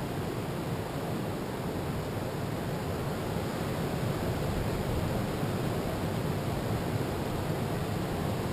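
Steady rushing noise of ocean surf breaking along a sandy beach, mixed with wind.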